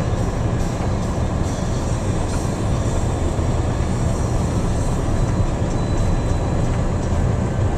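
Steady low rumble of a semi truck's diesel engine and tyre noise, heard from inside the cab while driving at highway speed.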